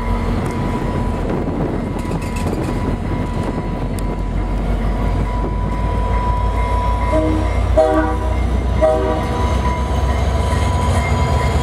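VIA Rail F40PH-2D locomotive's EMD two-stroke diesel engine running with a steady low rumble as the train departs, then three short horn blasts in quick succession about seven to nine seconds in.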